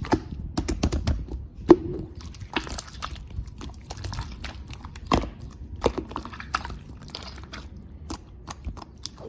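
Wind buffeting the microphone: a low, uneven rumble that can be mistaken for breathing through the nose, broken by frequent sharp clicks and taps at irregular intervals.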